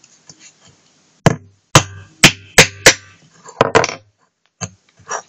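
Hammer striking a small nail to punch a hole in the centre of an aluminium soda-can bottom: five sharp strikes in about a second and a half, then a few lighter knocks.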